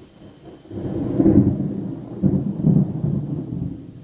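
Thunder from a nearby lightning strike in a severe thunderstorm. The deep rumble begins just under a second in, rolls through several loud peaks, and fades near the end.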